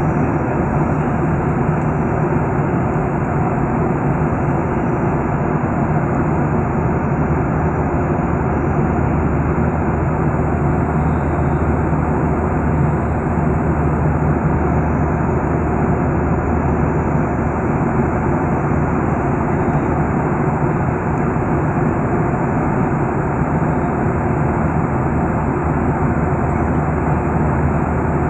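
Jet airliner in flight heard from inside the cabin beside a turbofan engine: a steady, even cabin noise with a constant low hum under it.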